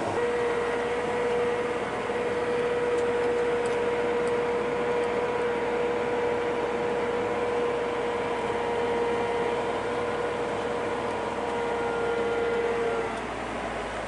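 Harvest machinery running steadily, with a high steady whine over the engine noise that fades out about a second before the end.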